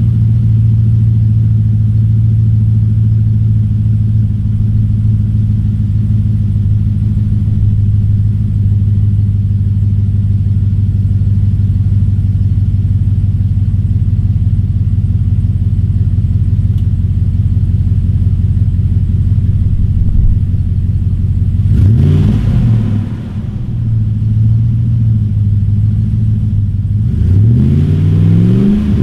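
A 2011 Chevy Suburban 2500's 6.0-litre L96 V8 idles steadily through JBA short headers and a Flowmaster FlowFX exhaust with dual tips. It is blipped briefly about three quarters of the way through, settles back to idle, and is revved higher near the end.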